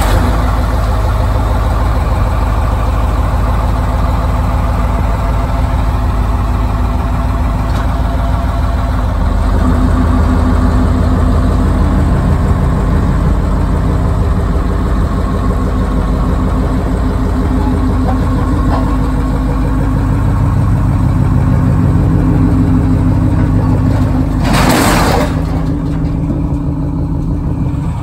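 Detroit 8.3 diesel engine of a Chevy C70 truck running steadily, a little louder and slightly higher after about ten seconds. A short burst of hiss comes near the end.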